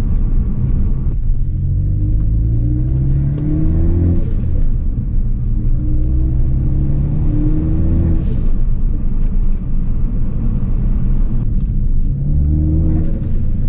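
Ford Focus ST's turbocharged four-cylinder engine pulling up through the revs three times, each pull rising in pitch, heard from inside the car. As the throttle lifts after the first two pulls there is a short hiss of the turbo releasing boost.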